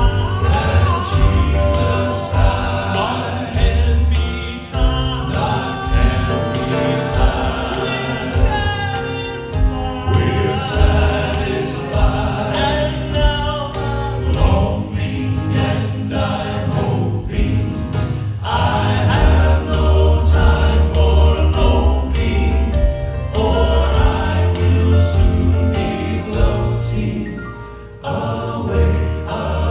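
Male gospel vocal quartet singing live into microphones in close harmony, over amplified accompaniment with a heavy bass and a steady beat. The music briefly drops in loudness near the end.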